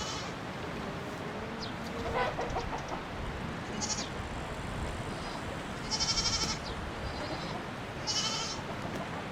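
Farm animals calling: several short, high, wavering cries, the loudest about six seconds in, with a rising call near two seconds, over steady background noise.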